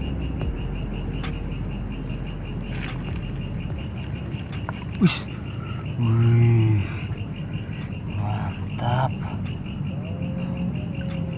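Crickets and other night insects chirping steadily. A sharp click comes about five seconds in, then a short, louder low-pitched call, the loudest sound, about a second later, and a few fainter calls near nine seconds.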